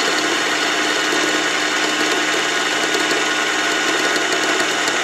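Mini lathe running steadily while a diamond-coated burr is fed very slowly into a steel shell holder, grinding a slot. The motor hum and its constant tone sit under an even grinding hiss.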